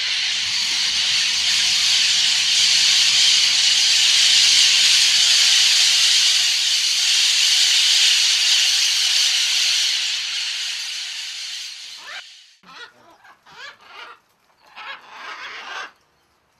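A huge flock of parakeets calling all at once, a dense, steady, high-pitched screeching din. It fades out after about twelve seconds, leaving a few scattered separate calls.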